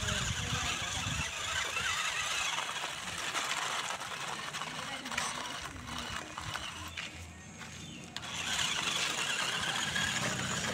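Small electric motor and gearbox of an RC rock crawler whining as it tows a loaded trailer over gravel, with the tyres crunching on the stones.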